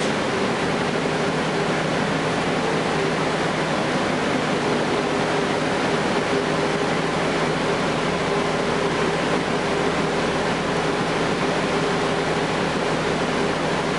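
Cummins ISL9 inline-six diesel of a 2012 Gillig Low Floor bus running steadily under way, heard from inside the passenger cabin with road noise. A steady tone runs through it, and the engine note does not rise or fall.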